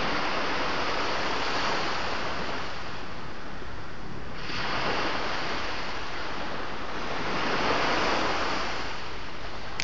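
Sea surf: waves breaking and washing ashore in a steady hiss, swelling three times as each wave comes in.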